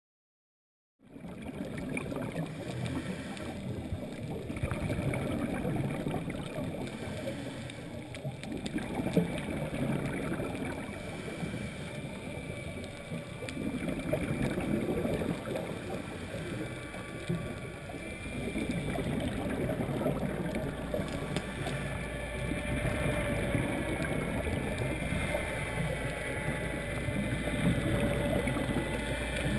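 Underwater scuba sound: a diver's regulator breathing and bubbling exhalations, swelling and easing about every five seconds over a muffled rush of water, starting about a second in. A faint steady whine joins in the second half.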